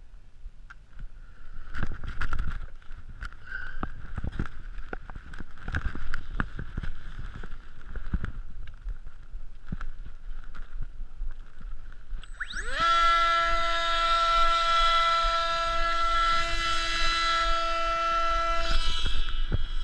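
Wind buffeting and rustling thumps on a coat-mounted microphone. About thirteen seconds in, the RC plane's electric motor and propeller spin up fast to a high, steady whine, held for about six seconds before throttling back to a weaker tone near the end.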